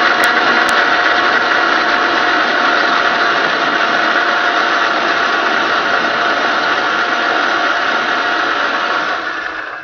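Electric kitchen mixer grinder running steadily at full speed, grinding coconut pieces with water into a fine paste for coconut milk. It winds down and stops at the very end.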